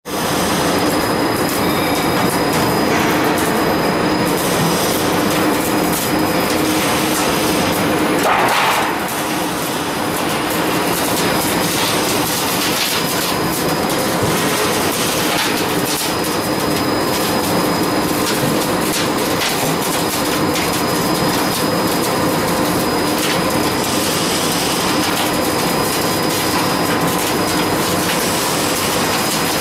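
Double cap ridge roll forming machine running, with painted steel sheet feeding through its forming rollers: a steady mechanical clatter with a constant hum, a few faint clicks, and a brief louder burst about eight seconds in.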